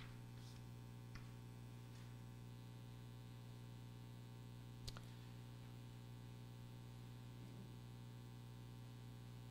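Near silence with a steady mains hum, faint rustles of Bible pages being turned in the first two seconds, and one sharp click about five seconds in.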